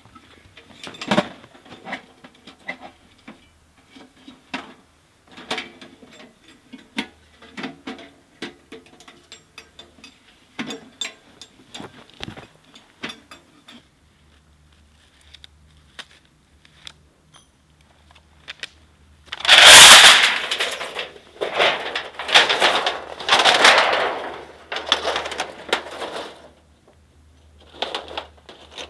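Camping gear handled by hand: scattered light knocks and clinks, then, after a quiet stretch, several seconds of loud rustling and scraping as gear is pulled from a backpack.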